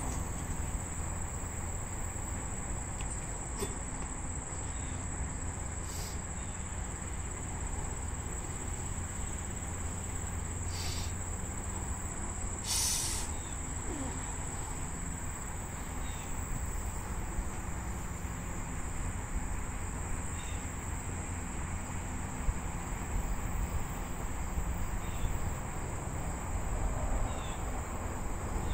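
Steady high-pitched insect trilling over a low rumble of wind on the microphone, with a few brief faint knocks.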